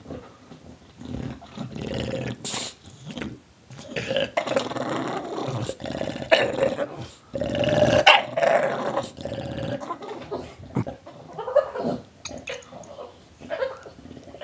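English bulldog growling and snarling in irregular throaty bouts, loudest in the middle stretch.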